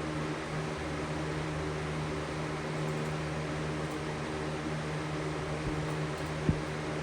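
Lasko 3733 box fan running with a steady hum and a hiss of moving air. The owner takes the fan to be out of balance: it walks across the floor and turns on its own. One short knock sounds near the end.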